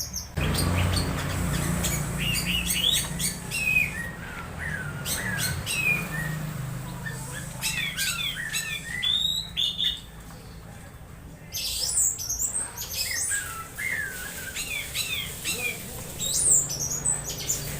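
Orange-headed thrush (anis merah) giving strange squeaky calls and chirps while being charged: a quick, varied string of short notes sliding up and down in pitch, with a break of about a second and a half near the middle. A low steady hum runs underneath.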